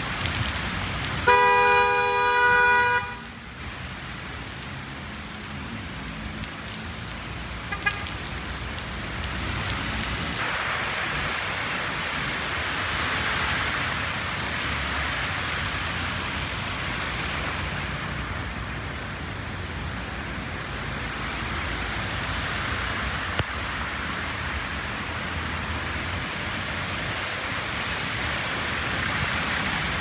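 A car horn blares for about a second and a half near the start, the loudest sound, with a brief faint second toot a few seconds later. Then a steady wash of heavy rain and car tyres on wet asphalt as traffic passes, growing louder about ten seconds in.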